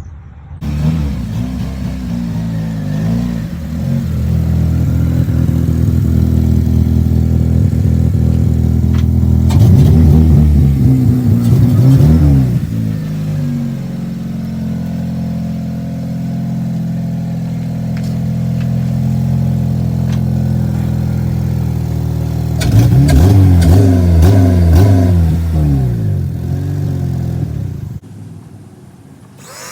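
8th-generation Honda Civic Si's 2.0-litre four-cylinder engine running, revved hard about ten seconds in and again about twenty-three seconds in, with steadier running in between. The sound drops away suddenly near the end.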